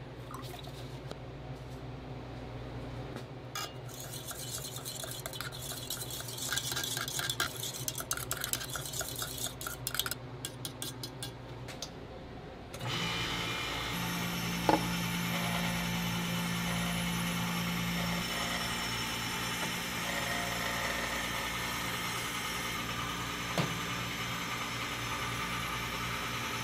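Milk poured into a stainless steel pitcher, followed by quick metallic clinking and scraping. About halfway through the sound switches to the steady running noise of a shaved-ice (bingsu) machine, with a low hum for a few seconds and two sharp clicks.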